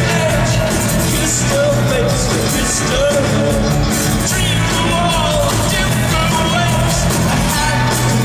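Live rock band playing, with a male lead voice singing over guitars, bass and drums, heard through an arena's PA from among the audience.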